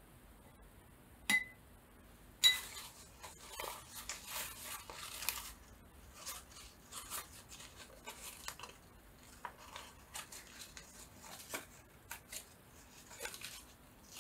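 Craft supplies handled on a worktable: two sharp clinks with a brief ring, then about three seconds of dense scratching and tapping, followed by scattered light knocks.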